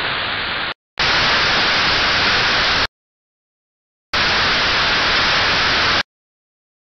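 Steady static hiss from a software-defined radio receiver tuned to an empty channel. It cuts off abruptly and comes back twice, then stops just before the end.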